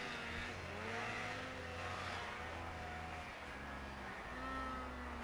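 Snowmobile engine running, a steady low drone whose pitch rises and falls a little as the throttle changes.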